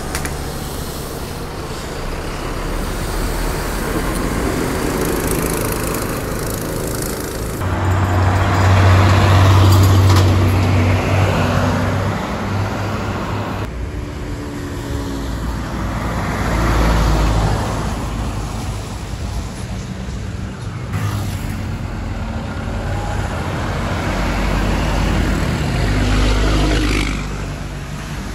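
Buses driving past on a city road one after another, their engines humming low and swelling as each one passes, over road traffic. The sound changes abruptly several times as one pass gives way to the next.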